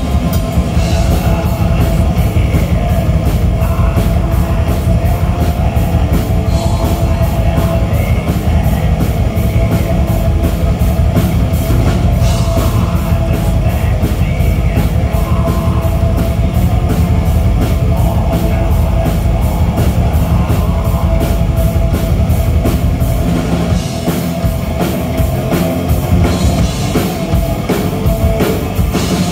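A black metal band playing live: loud distorted electric guitars and bass over fast, even drumming. The low end thins briefly about 24 seconds in.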